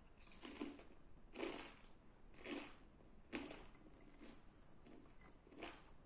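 Close-up chewing of a chicken and garlic naan pizza: short, faint mouth and chewing noises about once a second.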